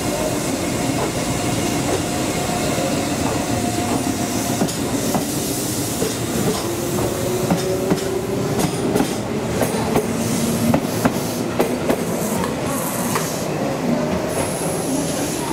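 Yagan Railway 6050-series electric train pulling out and passing: its traction motors hum and rise slowly in pitch as it gathers speed, and its wheels click over rail joints, a run of clicks through the middle of the passage.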